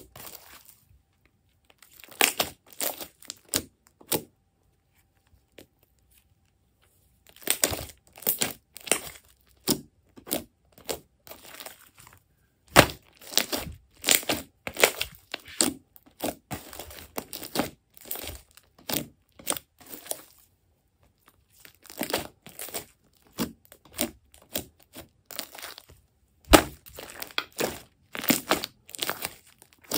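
Thick glossy slime squeezed and pressed by hand, giving irregular wet squelches, pops and crackles in dense clusters, with a pause of about three seconds near the start.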